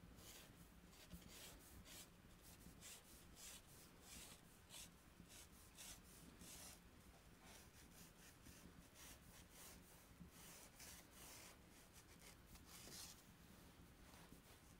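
Faint scratching of red chalk drawn across textured paper in quick, irregular strokes as a figure is sketched.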